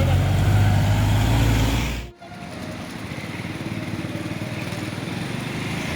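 A motor vehicle engine running close by, with a steady low hum, cut off abruptly about two seconds in. A quieter, steady rushing noise with a faint low hum follows.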